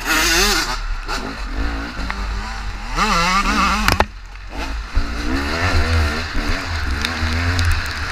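Honda XR400 dirt bike's single-cylinder four-stroke engine racing over rough ground, its revs rising and falling quickly with the throttle. About four seconds in it drops off sharply with a short knock, then picks up again.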